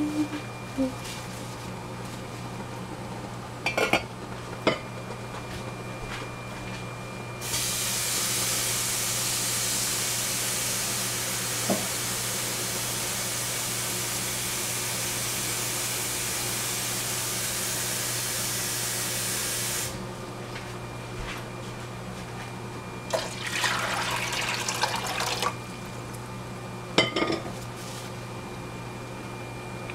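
A kitchen water tap runs in a steady stream for about twelve seconds, turned on and off abruptly, with a shorter run of water later. A few clinks of pots and a lid come before and after, over a steady low hum.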